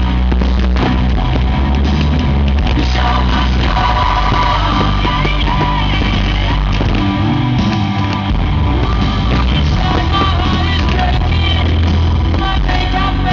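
Loud rock music with singing, playing steadily as a soundtrack.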